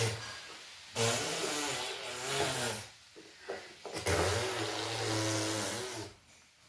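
A toy car's small motor runs in four buzzing bursts with short breaks between them; the longest comes about a second in, another starts about four seconds in, and the last cuts off near the end.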